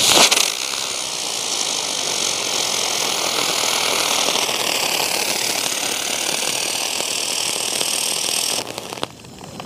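Butterfly ground-spinner firework (chakri) burning: a loud flare as it catches, then a steady hiss of spraying sparks with a thin, slightly wavering whistle, cutting off about nine seconds in.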